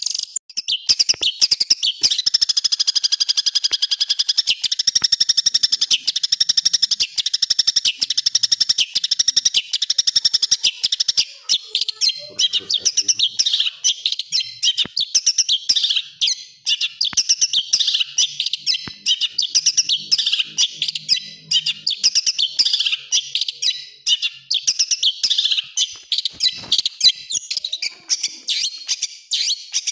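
Long-tailed shrike (cendet) singing without pause. A high, wavering warble fills the first few seconds, then gives way to a fast run of sharp, harsh notes: the rapid-fire 'tembakan kasar' phrases.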